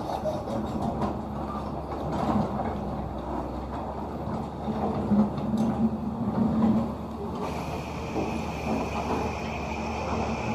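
Caterpillar 320D2 excavator working: its diesel engine runs under load with irregular scraping and clattering. A steady high whine joins about seven seconds in.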